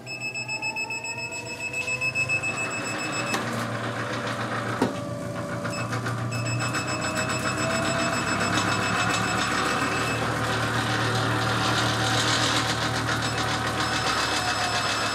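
Vibra-Trim VT400 twin-motor whole-body vibration platform running under a standing person: its motors wind up in pitch over the first couple of seconds, then run on steadily with a low hum, a buzzing rattle and a steady high-pitched tone. A single sharp click about five seconds in.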